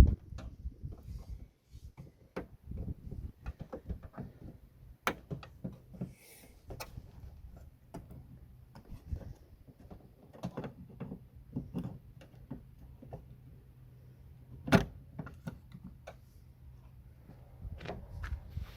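Irregular clicks, taps and knocks of hands and tools working inside a Toyota Celica ST185's door, on the door handle still connected to its rod. There is a sharper knock about five seconds in and the loudest one about fifteen seconds in.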